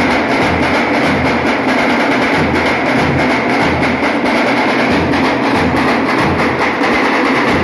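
Dhol-tasha drum troupe playing loudly together: many large two-headed dhol barrel drums beating a steady rhythm under the dense stick-beaten rattle of tasha drums.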